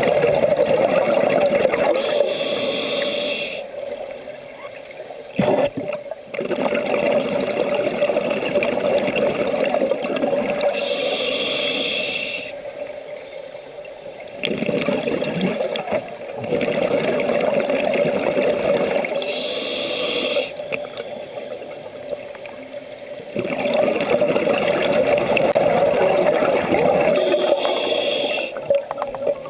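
Scuba regulator breathing heard underwater: four slow breaths, each a short hiss of inhaled air from the demand valve followed by several seconds of exhaled bubbles gurgling out of the exhaust.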